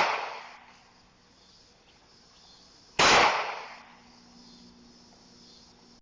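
Glock G23 .40 S&W pistol firing single shots about three seconds apart: one shot about halfway through, each shot's report dying away over most of a second, with the fading tail of the previous shot at the start and the next shot right at the end.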